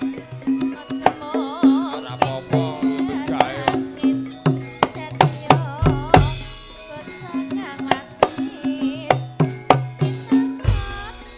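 Javanese gamelan music playing a gendhing: quick hand-drum strokes drive the rhythm over steady metallophone tones and a wavering melody line, with a deep bass stroke about six seconds in and another near the end.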